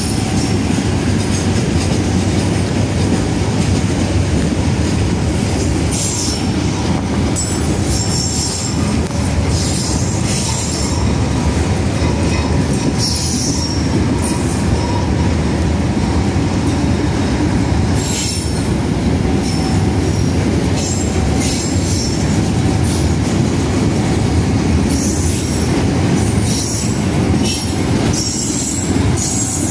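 Freight train of fuel tank wagons rolling slowly past at close range under a track-work speed restriction of about 20 km/h. A steady heavy rumble of steel wheels on rail runs throughout, with high wheel squeals coming and going every few seconds.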